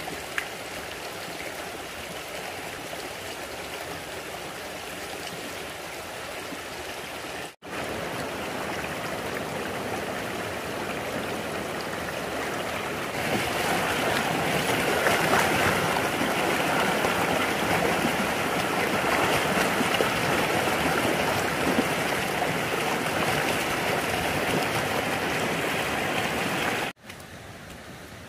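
Running water flowing and splashing steadily, louder from about halfway through, breaking off sharply twice.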